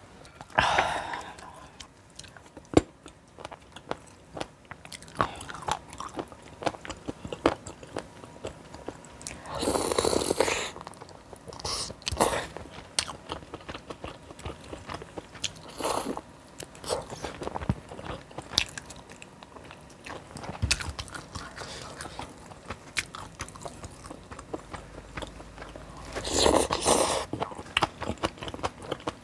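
Close-miked eating: steady wet chewing and crunching with many small mouth clicks. A few louder, longer noisy bursts come about ten seconds in, around twelve and sixteen seconds, and again near the end.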